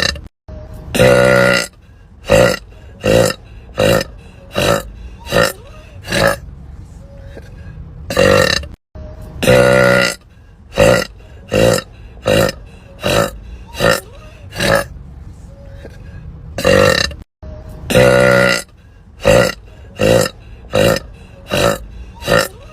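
A woman burping over and over: a run of short burps a little more than one a second, with several longer, louder burps among them. The run is broken by a few abrupt cuts.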